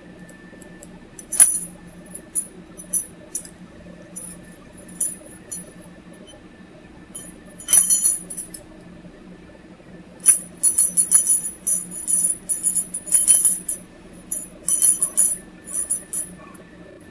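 Ultrasonic soldering iron at work on solder and a glass slide: irregular bursts of high-pitched chattering crackle where the vibrating tip makes contact, sparse at first and dense in the second half. A steady low hum and a faint steady high tone run underneath.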